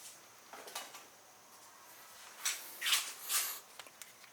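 Throttle-body gasket and spacer parts being handled and set in place: a few short scraping, rustling handling sounds, the loudest three close together about two and a half to three and a half seconds in.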